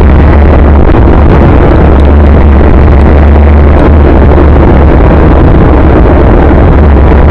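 Steady, very loud wind and road rumble from riding a bike, overloading the microphone, with a heavy low drone and no change in pace.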